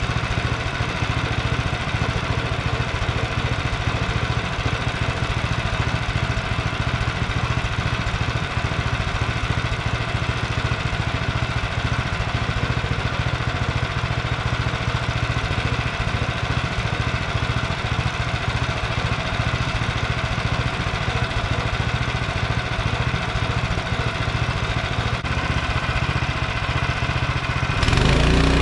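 Small gasoline engine of a portable bandsaw sawmill running steadily. About a second before the end the sound changes abruptly and grows a little louder.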